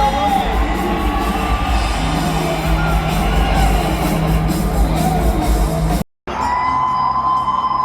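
Loud music playing over arena crowd noise, breaking off for a moment about six seconds in before the music resumes.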